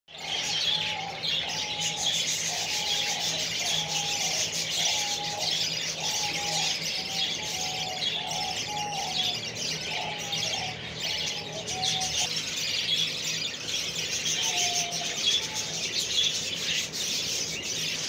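A flock of budgerigars chattering and chirping without a break. Under the chatter, a lower pattern of held notes repeats for the first twelve seconds or so, with one more phrase near fifteen seconds.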